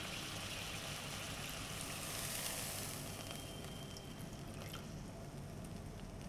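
Chicken pieces in chilli masala sizzling and bubbling in a wok, with water just added to the pan. The sizzle is loudest about two to three seconds in, then dies down.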